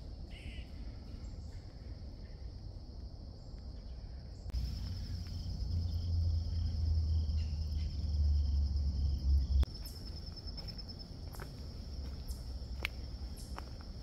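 A steady chorus of insects trilling in one high band. A low rumble comes in about four and a half seconds in and stops just before ten seconds, and footsteps tick lightly in the last few seconds.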